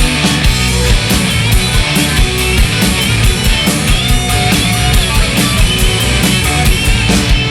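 Loud hard rock music: electric guitar over a steady drum beat, with no singing.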